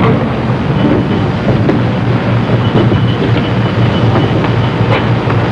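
Steady rumbling noise with a low hum and a few faint clicks.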